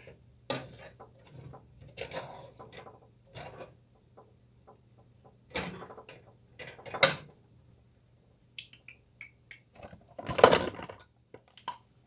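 Kitchen handling noises: scattered clicks, knocks and clatters of utensils and dishes, the loudest a sharp knock about seven seconds in and a longer clatter about ten and a half seconds in.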